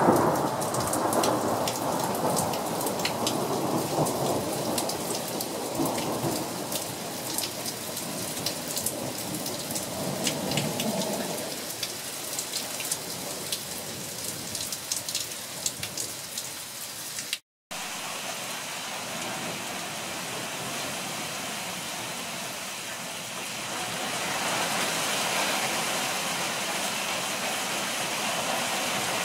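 Hail storm: hailstones falling hard, with many sharp ticks of stones striking, over a rumble of thunder that fades out over the first ten seconds or so. After a brief dropout the sound is a steady heavy downpour without the ticks, growing louder near the end.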